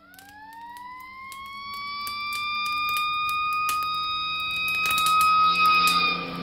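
A siren winding up: its pitch climbs over the first two seconds, then holds steady while growing louder, and starts to sag near the end. Sharp crackles are scattered throughout.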